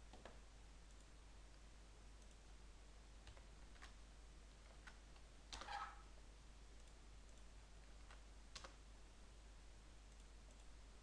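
A few faint, scattered clicks of a computer keyboard and mouse over near-silent room tone, with a slightly louder cluster of keystrokes a little past halfway.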